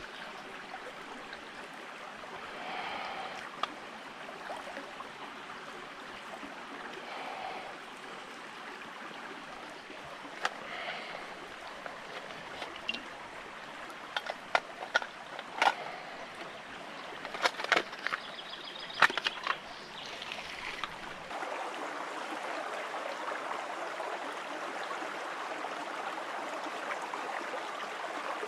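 Shallow stream running steadily over stones, with a run of sharp clicks and knocks about halfway through as split kindling and small kit are handled on the rock. The stream sounds fuller and a little louder near the end.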